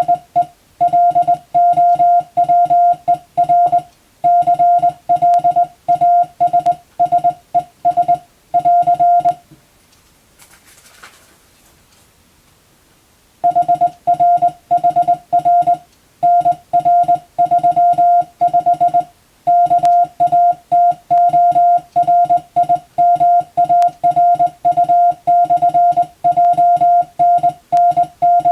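Morse code (CW) tone at a single pitch, keyed on and off in dots and dashes at a steady sending speed. The code is English telegram text being sent as practice. The sending breaks off for about four seconds around the middle, then resumes.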